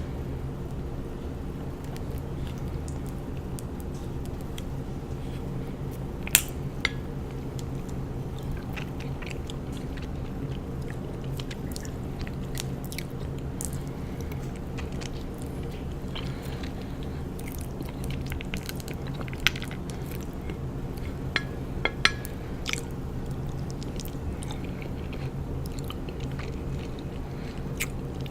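Close-miked chewing of raw honeycomb: wet, sticky mouth sounds with scattered sharp clicks, a few of them louder. A steady low hum sits underneath.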